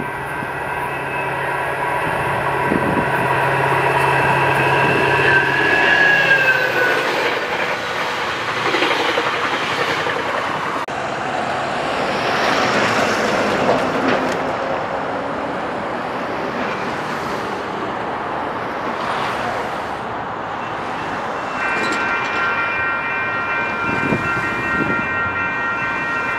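Passing train: a locomotive horn sounds a steady multi-note chord that dips in pitch about six seconds in. The wheels then roll along the track, and the horn chord sounds again near the end.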